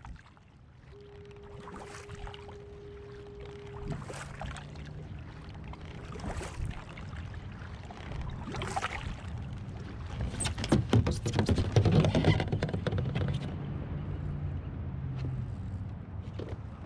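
Kayak paddle strokes dipping and swishing through calm water about every two seconds. Then comes a louder stretch of knocking and clatter on the plastic fishing kayak as the paddle is set down.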